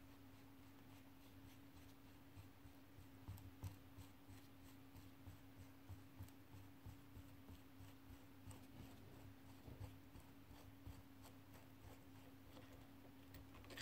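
Faint clicking and scraping of the threaded axle of a Sachs Torpedo Jet bicycle hub being turned by hand to unscrew it from the hub, a few small clicks a second, with one sharper click near the end. A steady low hum lies underneath.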